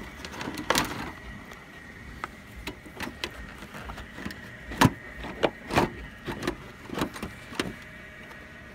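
Scattered clicks and knocks of a headlight assembly and grille parts being handled and pushed into place on a pickup's front end, the loudest knock about five seconds in.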